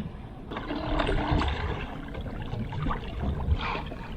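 Water lapping and trickling against the side of a small fishing boat, with a few small knocks and clicks.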